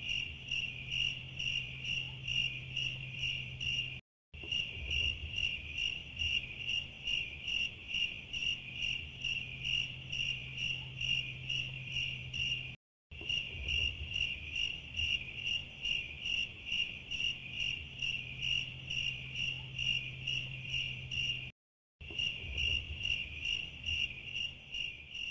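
Cricket chirping in a steady, high-pitched rhythm of about three chirps a second: the stock 'awkward silence' cricket sound effect, looped, with brief dead gaps where the loop restarts.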